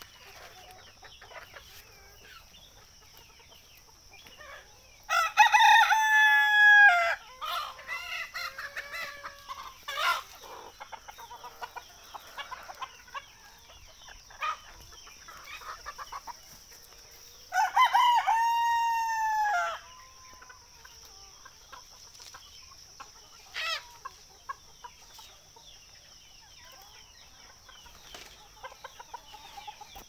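Desi roosters crowing twice, each crow about two seconds long, the first about five seconds in and the second about eighteen seconds in, with hens clucking softly in between. A steady high-pitched whine sits underneath throughout.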